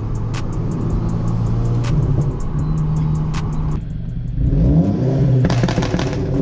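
Audi A4 2.0-litre turbo four with a catless downpipe and AWE track exhaust, driving with sharp exhaust crackles every second or two from its crackle tune. About four seconds in there is a brief dip, the engine note climbs again, and a rapid burst of crackles follows near the end.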